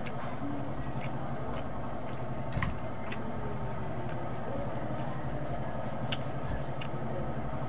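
A steady low machine hum with scattered soft clicks and ticks, and one heavier thump about two and a half seconds in: the small sounds of eating by hand from a plate.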